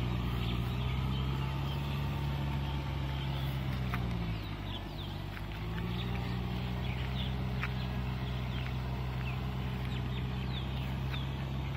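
Tractor engine running steadily as it pulls a rotavator through a flooded rice paddy; about four to five seconds in, its pitch dips briefly and then climbs back up. Many short, high bird chirps sound over the engine.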